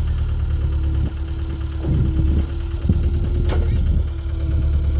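Engine running steadily at idle, with a steady whine over it and a few clunks and knocks in the middle.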